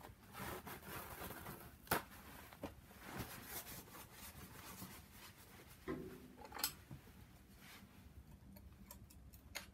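Faint clicks and scraping of a small pry tool against metal engine fittings, with rustling of a rag and clothing, as a turbo line fitting is pried loose. One sharp click about two seconds in, another near the end.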